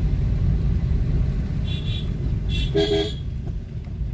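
Vehicle horns honking twice over a steady low rumble of road and wind noise: a short high honk just under two seconds in, then a fuller, louder honk about a second later.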